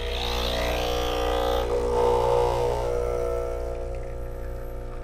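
Breville Barista Express's vibratory pump humming steadily while pulling an espresso shot, with a hiss in the first second or two. It grows louder around two seconds in as brew pressure builds toward about 10 bar.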